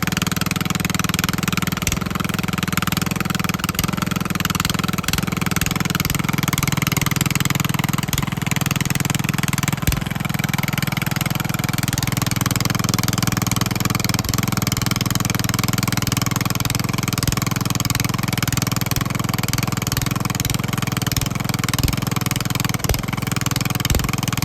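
Riding lawnmower engine running steadily at throttle while the mower is driven in a creek bog, with scattered small clicks and knocks; the attempt to drive out only sinks it deeper.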